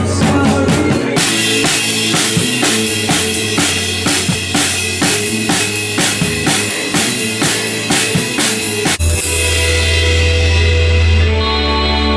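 A band rehearsing: the drum kit keeps a steady beat of evenly spaced hits with crashing cymbals over keyboard and bass. About nine seconds in it breaks off abruptly into a held, ringing chord with a deep bass note.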